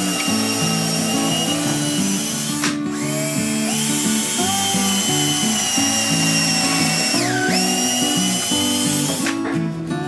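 DeWalt cordless drill running on the plywood back panel of a cabinet, its motor whine stopping briefly then starting again, and once dropping sharply in pitch and recovering. Background acoustic guitar music plays throughout.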